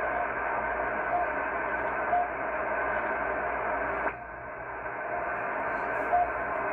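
Shortwave receiver's speaker in CW mode on 9996 kHz, carrying the RWM Moscow time signal: steady static hiss with short beeps, the station's once-a-second time pips, on the MLA 30 magnetic loop antenna. The pips pause in the middle and come back near the end. About four seconds in, a click and the hiss narrows and drops slightly as the receive filter is narrowed.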